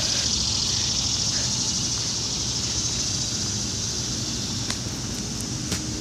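Steady outdoor background noise: an even high hiss over a low rumble, with a couple of faint clicks near the end.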